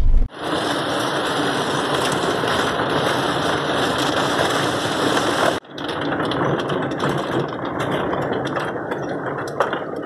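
A car driving over an unpaved dirt road, heard from inside the cabin: a steady rush of tyre and road noise with small rattles and knocks. It is broken by a sudden cut a little past halfway, then carries on the same.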